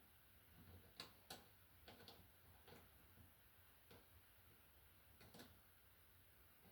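Faint, scattered clicks of bare copper ground wires being handled and lined up evenly at their ends, a few light taps and ticks a second or more apart.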